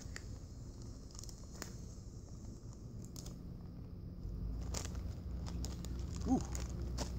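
Crinkling and rustling of a foil-lined freeze-dried meal pouch being handled, with scattered light clicks and crackles, and a brief pitched squeak about six seconds in.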